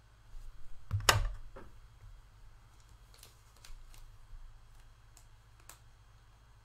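Trading cards and their packaging being handled: a louder rustle with a thump about a second in, then a few light clicks and slides of cards.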